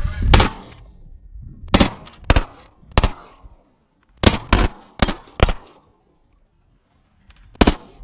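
A volley of shotgun blasts from several hunters firing at Canada geese decoying in, about nine shots in all. The shots come in quick irregular succession, some nearly doubled, over the first six seconds, then a pause and one last shot near the end.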